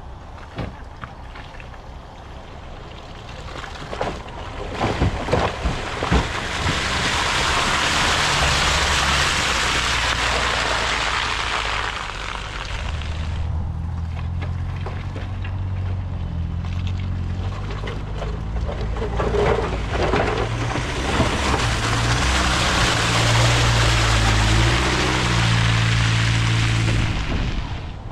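A Land Rover Freelander's engine labouring and revving as it drives through deep muddy ruts, with the wheels churning mud and water. A loud rushing noise comes in two long stretches, about a quarter of the way in and again in the second half, when the engine revs harder.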